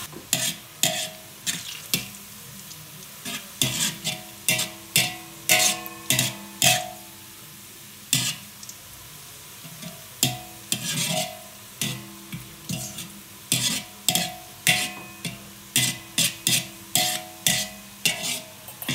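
Onions and garlic frying in oil, sizzling steadily, while a spatula stirs them with frequent sharp clacks and scrapes against the pan. They are being browned to golden.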